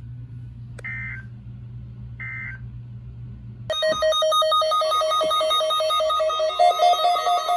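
Two short data chirps of an Emergency Alert System end-of-message signal over a low hum, marking the end of a warning. About two-thirds of the way through, a much louder electronic alert tone starts, its pitches stepping quickly, and carries on.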